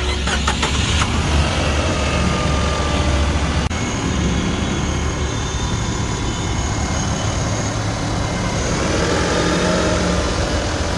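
Nissan Micra Active's 1.2-litre three-cylinder petrol engine running steadily at idle, heard close up with the bonnet open.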